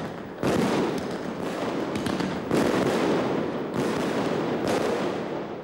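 Fireworks going off: several shells bursting one after another, each a sudden bang trailing off into a fading rumble.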